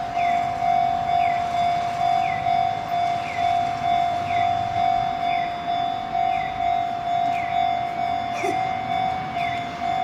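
Japanese railway level-crossing warning alarm ringing: an electronic bell tone repeating rapidly and evenly, with a higher falling chime about once a second. A brief knock sounds near the end.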